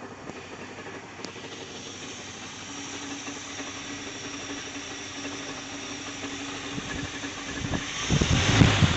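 1976 Dodge 3/4-ton pickup idling with a steady hum and a rattle, a strange noise the owner hears in park and reverse but not in drive. Near the end, loud, irregular knocking and thumps set in.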